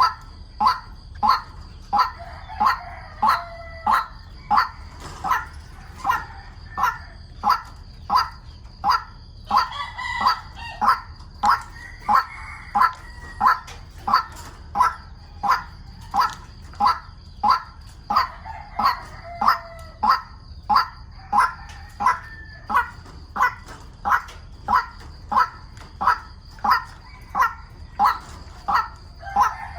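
White-breasted waterhen calling: one short note repeated evenly about one and a half times a second, with longer warbling calls overlapping it several times.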